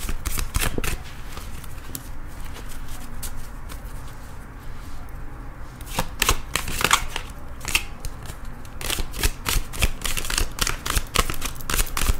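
A tarot deck being shuffled by hand: cards flicking and slapping against each other in quick runs of clicks, sparser for a few seconds, then picking up again about six seconds in and running on busily.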